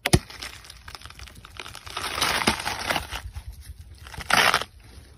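Watermelon rind being cut and torn open by hand, with crisp crunching and tearing. There is a sharp snap just after the start, a longer crackling tear in the middle, and another loud crunch a little over four seconds in.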